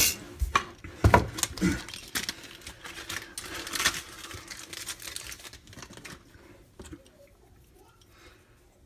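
Plastic packaging crinkling and tearing as it is opened by hand, with a sharp click at the start; the handling grows quieter and fades out after about six seconds.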